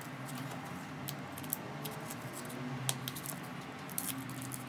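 Hands handling a small taped cardboard package, faint, with a few light clicks and taps over a steady low hum.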